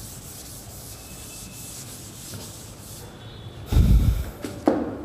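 Felt chalkboard duster rubbing over a blackboard in repeated strokes, wiping off chalk. The rubbing stops about three seconds in, followed by a loud, low thump and a smaller knock just after it.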